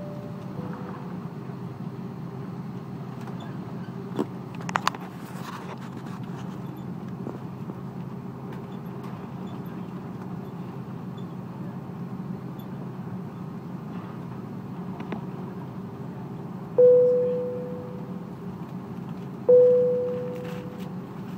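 Steady cabin noise of an Airbus A330-300 taxiing, heard from a seat over the wing. About four to five seconds in there are a few short clicks. Near the end come two single cabin chimes about three seconds apart, each a clear ding that fades away; these are the loudest sounds.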